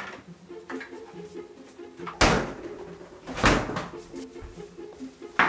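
Refrigerator doors being shut: two heavy thuds about a second apart, with another sharp knock near the end, over soft background music.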